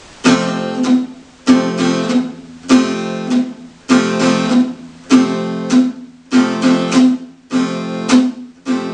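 Acoustic guitar barre chord strummed in a steady repeating rhythm, a new group of strums about every 1.2 seconds. Each group is cut off short as the fretting hand relaxes its grip on the strings, a left-hand mute that stops the chord dead.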